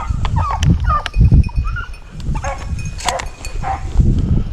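Beagles giving tongue, short repeated yelping bays while running a rabbit's trail, over a low rumble on the microphone.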